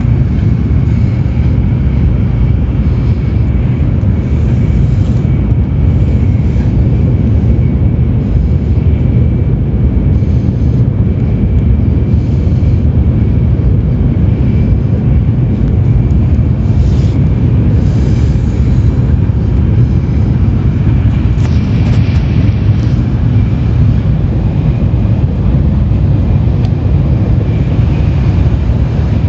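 Tokaido Shinkansen Kodama train running at speed, heard from inside the cabin: a loud, steady low rumble with a faint steady high tone above it.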